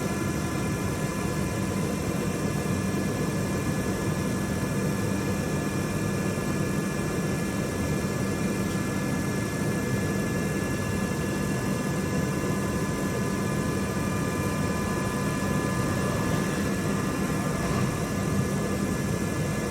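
Hermle C 400 U five-axis CNC machining centre running under power: a steady mechanical hum and rush with a constant high whine made of several tones.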